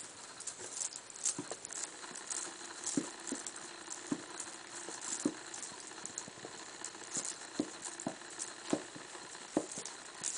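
African pygmy hedgehogs scuffling against each other and their bedding while mating: irregular soft taps and scratches, a few a second.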